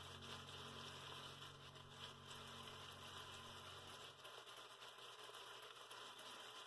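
Near silence: a faint steady hiss, with a low hum that stops about four seconds in.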